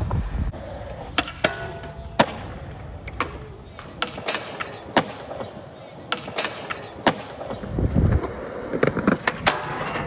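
Skateboards ridden on concrete: wheels rolling, with a dozen or so sharp clacks from tails popping and boards landing.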